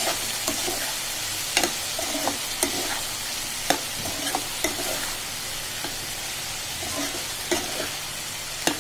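Chopped vegetables frying in spiced oil in a pan with a steady sizzle, while a spatula stirs them, knocking and scraping against the pan at irregular intervals.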